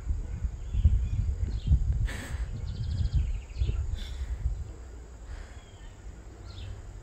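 Outdoor ambience: a gusting low rumble of wind on the phone's microphone, with birds chirping now and then.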